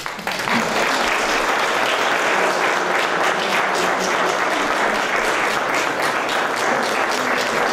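Audience applauding: many people clapping, breaking out suddenly and then holding steady.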